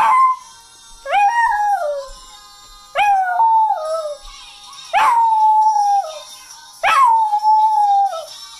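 A dog howling along to singing from the television: a run of howls about two seconds apart, each about a second long, rising sharply at the start, held on one pitch, then falling off.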